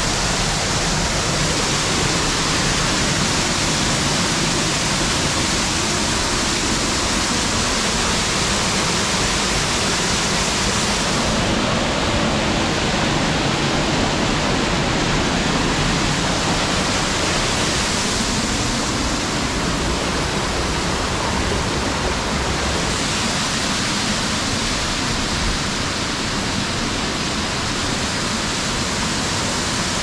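Rushing water of a small snow-melt river, a loud, steady rush whose hiss shifts slightly a few times.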